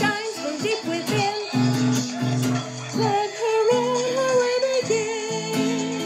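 A woman singing a melody with vibrato while strumming an acoustic guitar over a recorded TV theme-song backing track.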